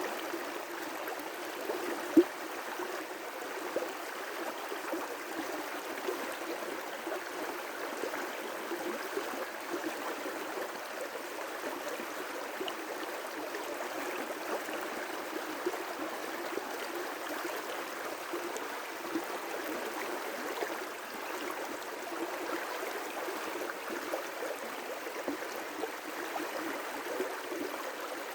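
River rapids rushing steadily, with a gurgling, bubbling texture. A single sharp click about two seconds in.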